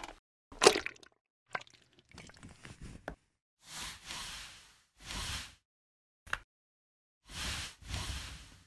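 Sound effects of an aluminium soda can stepped on by a stiletto heel: a sharp crunch about a second in, then crackling and several squishy, liquid whooshes as the can turns into a puddle.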